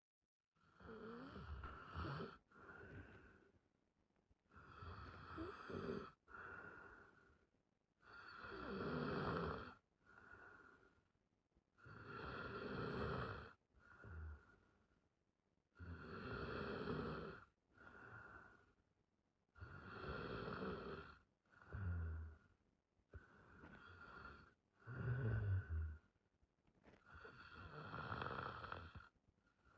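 A woman snoring in her sleep, steady and regular, with a breath about every four seconds, each a longer, louder snore followed by a shorter one. It starts about half a second in.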